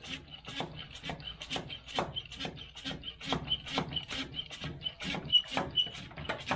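Brake bleeding tool being pumped by hand to push brake fluid into the Unimog 404's brake lines, giving a steady run of sharp clicks, about two to three a second, each with a short high squeak.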